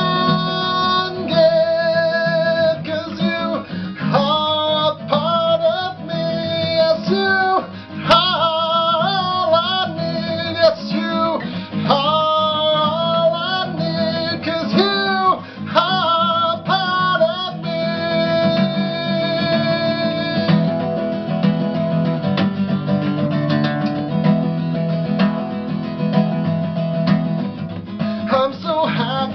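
A man singing a folk song to his own strummed acoustic guitar. The singing drops out for a stretch in the second half, leaving the guitar strumming on its own.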